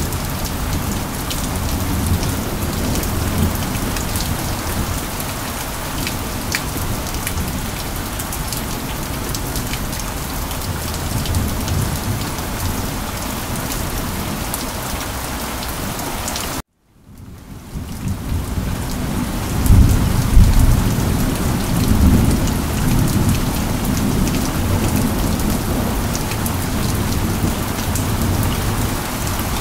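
Steady rain falling, with scattered drops ticking. About two-thirds of the way through, the sound cuts out for a moment and fades back in, and a low rumble of thunder follows.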